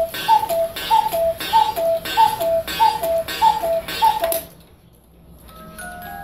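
Antique German Black Forest cuckoo clock striking eight: the bird's bellows-and-pipe call, a high note then a lower one, repeated about three times every two seconds and stopping about four seconds in. Near the end the clock's Swiss musical movement starts its melody.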